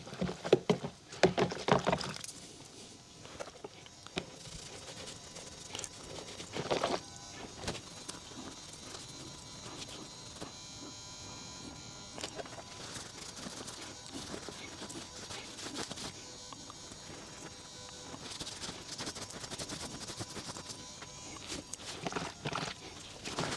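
Faint clicks and knocks of plastic knobs being handled and washed in soapy water, over a steady electrical buzz from a fluorescent light's starter.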